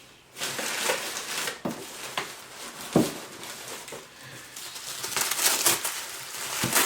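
Wrapping material crinkling and rustling in irregular bursts as a package is unwrapped by hand, with a sharper knock about three seconds in.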